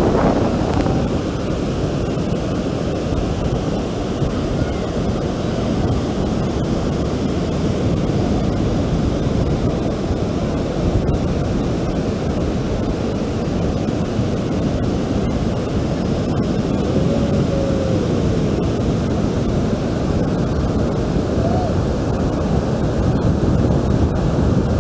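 Steady rush of surf breaking on a sandy beach, mixed with wind buffeting the microphone.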